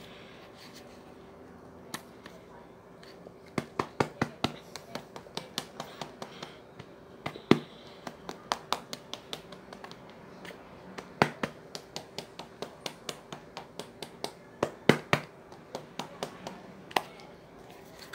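Makeup items being handled: an irregular run of sharp clicks and taps, a few a second, starting a few seconds in, like plastic cases and caps knocking together, over a faint steady hum.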